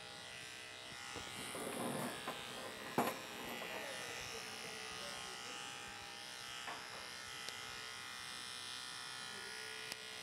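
Electric dog grooming clippers running with a steady buzz, with a few faint knocks about two and three seconds in.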